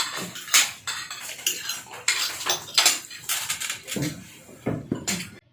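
Cutlery clinking and scraping against plates during a meal: an irregular run of sharp clinks.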